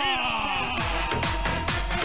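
Electronic dance music with a steady bass beat playing through a sonidero sound system, while the MC's last shouted words slide down in pitch as an echo effect fades out over the first second.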